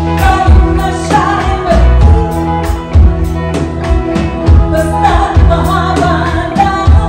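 Live rock band playing, with a woman singing a melody over electric guitar, bass guitar, and a drum kit keeping a steady beat.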